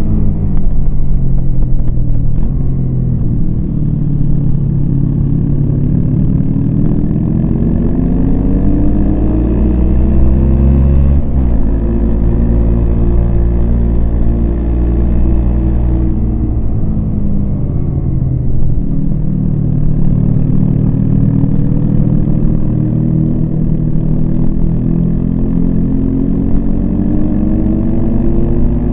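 Yamaha MT-25's parallel-twin engine pulling a motorcycle along, its note sinking and climbing several times as the throttle is closed and opened: falling in the first few seconds, rising again, then falling and climbing once more a little past halfway.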